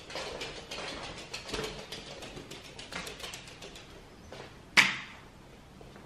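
A small dog's claws clicking rapidly on a wooden floor as it trots along, the clicks thinning out after about three seconds. A single sharp knock about three-quarters of the way through is the loudest sound.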